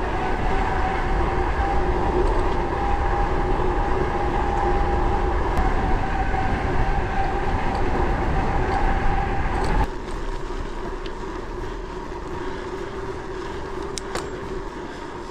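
Gravel bike tyres rolling on a paved road with a steady hum, under low wind rumble on the microphone while riding. The rumble drops off suddenly about ten seconds in, and a softer hum carries on.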